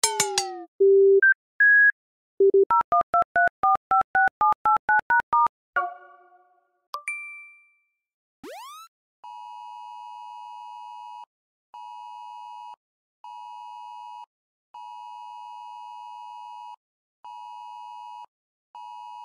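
A quick series of iPhone system sounds: short electronic beeps, a fast climbing run of paired tones, a chime, a ding and a rising sweep. About halfway through, the iOS 17 Government Alert emergency tone begins: a harsh two-tone alarm that repeats in a long-short-short on-and-off pattern, played at lowered volume.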